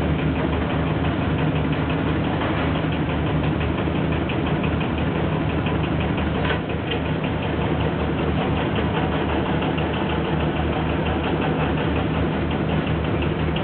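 Boat engine running steadily, with a fast, even knocking beat.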